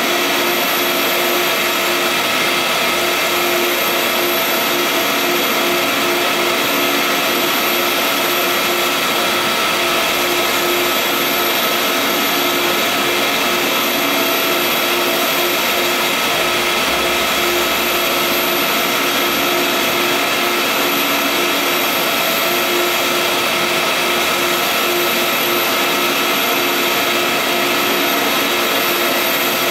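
Vutek UV-curable flatbed printer running while it prints onto rigid board: a steady mechanical whir with a constant hum that does not change.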